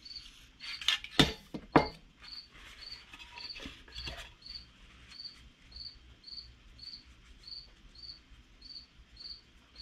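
A cricket chirping steadily, a short high chirp a little under twice a second. Over it, in the first two seconds, come a few sharp clicks and knocks of small metal carburetor parts being handled on a workbench.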